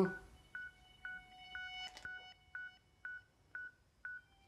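Electronic beeping: short high beeps at an even pace of about two a second, over quieter held tones at several pitches.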